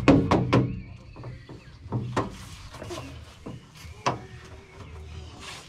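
Hollow knocks and thumps as a toddler's shoes and body bump the inside of a playground tunnel: a quick run of about four at the start, then single knocks about two and four seconds in.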